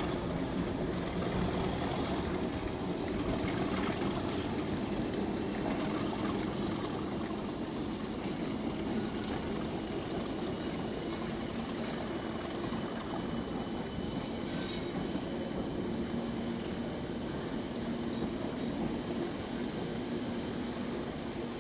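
English Electric Class 37 diesel locomotive at work, its engine growling steadily, with a faint high whine above it; the sound eases off a little toward the end.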